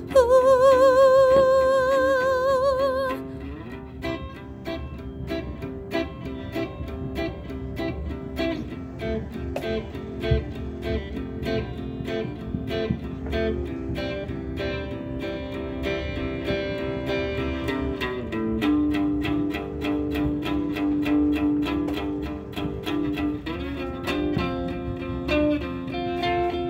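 A sung note held with vibrato for about three seconds, then guitar playing on alone in an even rhythm: the instrumental close of a song.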